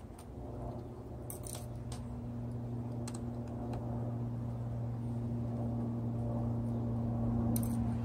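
A few small metallic clicks from a jeweler's screwdriver and tiny case screws being handled. Under them a steady low hum grows slowly louder and is the loudest sound.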